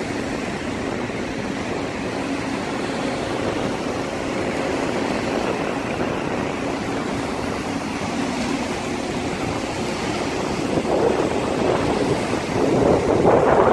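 Small waves washing and breaking on a sandy shore in a steady rush that grows louder over the last few seconds as the passing container ship's wake reaches the beach.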